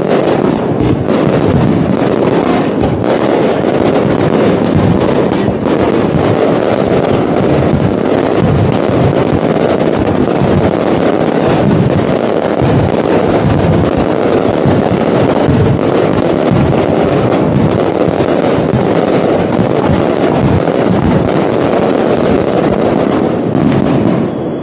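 A large aerial fireworks display firing a dense, continuous barrage: overlapping booms and crackling bursts follow one another without a break, with a brief lull just before the end.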